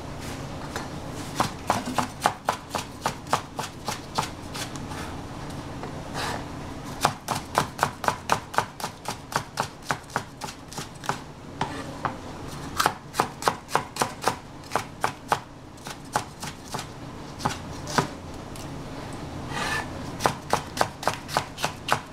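Kitchen knife chopping capsicum on a cutting board: sharp knocks about three a second, in runs of a few seconds broken by short pauses.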